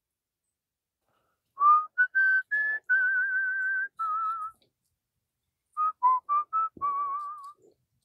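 A person whistling a tune in two short phrases, the longer held notes warbling slightly.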